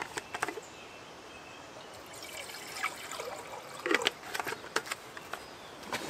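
Water poured from a plastic drinking bottle into a small metal pot on a camp stove, filling it for coffee. There are a few clicks near the start, the pour runs for about two seconds, and a few short knocks follow about four seconds in.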